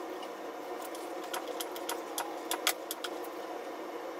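A steady machine hum runs under irregular light clicks and knocks, as a hydraulic floor jack is worked under a car.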